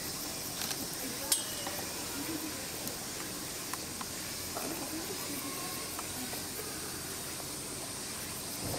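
Steady high-pitched outdoor hiss with faint, indistinct voices, broken by one sharp click about a second and a half in and a few softer ticks.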